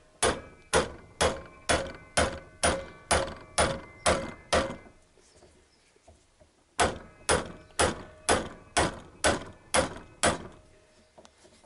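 Hammer blows on metal at about two a second, each with a short metallic ring: a run of about ten, a pause, then about eight more. The blows are knocking at a seized fastener on an alternator that will not come undone.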